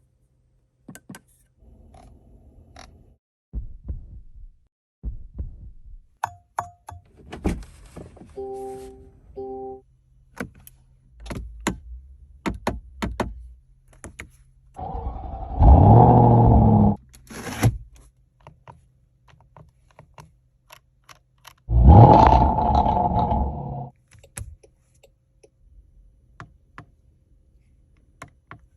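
Jaguar F-Pace SVR's supercharged V8 flaring up loudly twice, about 15 and 22 seconds in, each burst a couple of seconds long with a sharply rising pitch. Before that come cabin clicks and a short repeated car chime.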